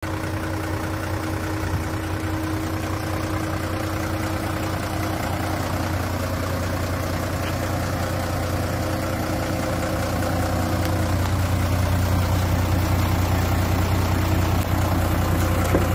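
Mitsubishi Fuso Fighter's 6D17 inline-six diesel engine idling steadily, a little louder in the last few seconds.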